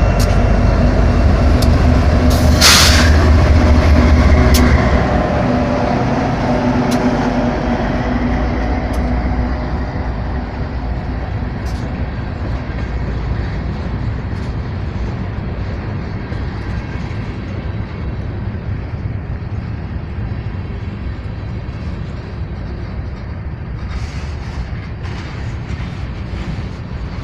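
Freight train rolling past, loud for the first five seconds with a brief sharp hiss about three seconds in, then the rumble of the cars gradually grows quieter.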